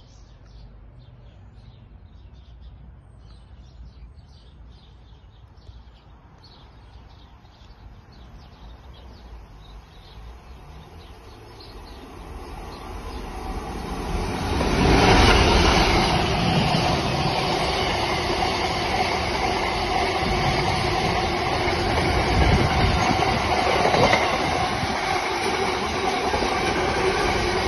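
A Class 66 diesel locomotive approaches and passes close by at the head of a container freight train. It is faint at first, grows louder from about twelve seconds in and is loudest as the locomotive goes by. Then come the steady noise of the container wagons rolling past and some wheel squeal.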